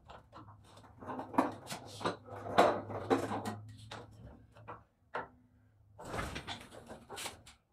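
Hydraulic floor jack being pumped by hand with its long handle: an irregular run of clunks and creaks from the handle and jack.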